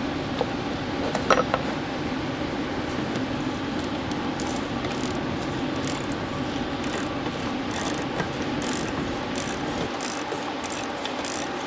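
Ratchet wrench clicking in short, irregular strokes while working loose a stubborn bolt, over a steady background hum, with a couple of metal knocks about a second in.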